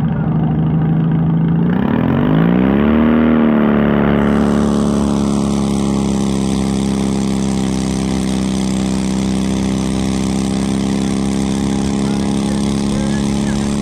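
Stock garden tractor engine running slowly, then opened up about two seconds in and held at a steady, higher speed as the tractor pulls the weight sled. A steady hiss joins about four seconds in.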